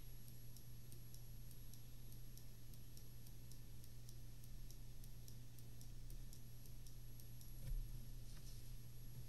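Faint, evenly spaced ticking, about three ticks a second, over a steady low hum, with one soft thump late on.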